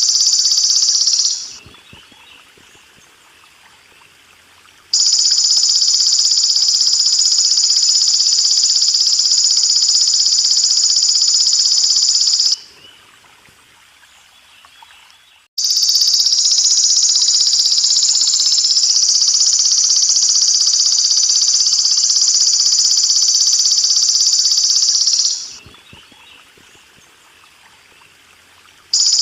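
Belalang emas insect calling in a loud, steady, high-pitched shrill, in long bouts of about 7 to 10 seconds broken by pauses of about three seconds. Faint trickling water runs underneath.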